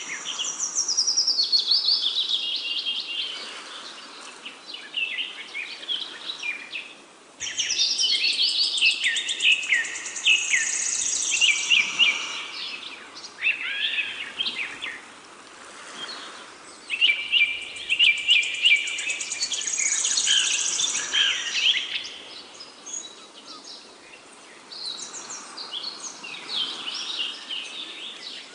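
Songbirds singing: many quick overlapping chirps and trills, with a short lull about seven seconds in.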